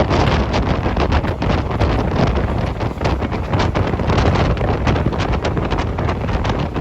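Strong wind buffeting the phone's microphone, over a continuous low rumble.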